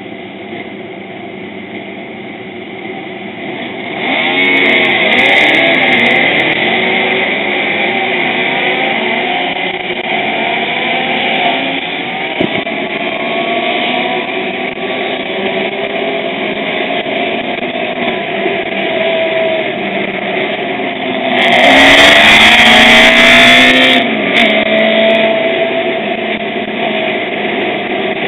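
Motorcycle engines of a group of riders running on the move, their pitch rising and falling as they accelerate and change gear, louder from about four seconds in. About three quarters of the way through, wind rush on the microphone is briefly the loudest sound for two or three seconds.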